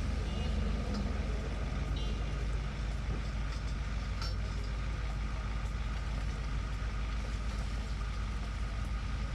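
Auto body shop ambience: a steady, low machinery hum with a thin steady whine over it, and a few faint clicks about two and four seconds in.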